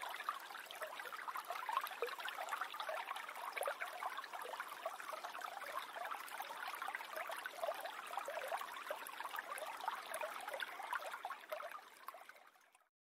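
Small stream flowing and trickling, a steady babble of many small splashes. It fades out near the end.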